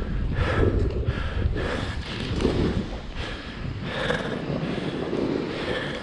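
Hard, heavy breathing of an out-of-breath snowboarder, a breath about once a second, over a steady low rumble of wind on the microphone.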